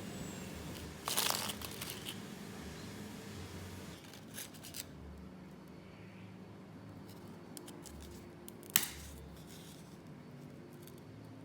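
Dry crackly rustling and clicking from something crisp being handled: a short crackle about a second in, a few light clicks around the middle, and one sharp click past the middle.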